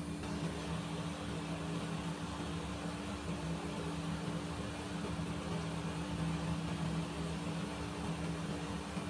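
A steady low machine hum with a constant hiss, unchanging throughout.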